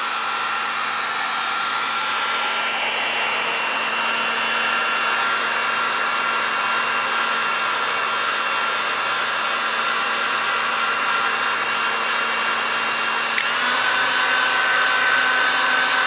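Electric heat gun running steadily, its fan blowing with a steady motor whine as it shrinks heat-shrink tubing onto a power adapter's cable. About 13 seconds in there is a faint click, and the whine steps up slightly in pitch.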